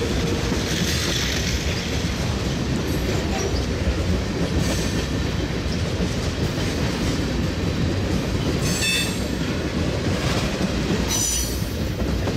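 Norfolk Southern freight train rolling past: a steady, loud rumble of wheels on rail, with brief high wheel squeals about five, nine and eleven seconds in.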